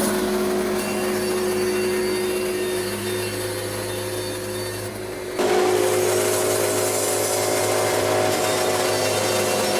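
Wood-Mizer LT70 band sawmill running steadily, a constant motor hum under the noise of the band blade milling yellow pine. The sound gets abruptly louder and brighter about five seconds in.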